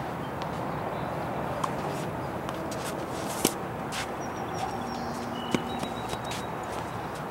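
Tennis racket striking a ball with one sharp pop about three and a half seconds in, among a few fainter knocks, over a steady outdoor hiss.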